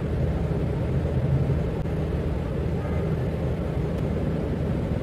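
A steady low hum with no clear rise, fall or strokes.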